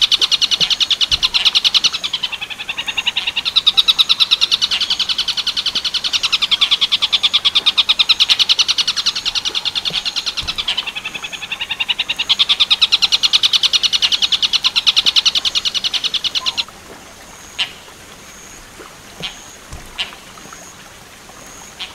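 Tengkek buto (kingfisher) call in the 'werkudoro' style: a loud, fast rattling series of high notes, kept up with brief breaks for about sixteen seconds. It cuts off suddenly, leaving only faint scattered chirps and ticks.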